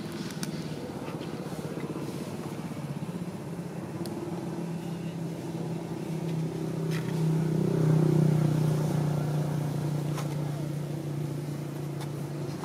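A motor engine hums steadily, growing louder past the middle and then easing off again, as if a vehicle passes nearby. A few faint clicks can be heard.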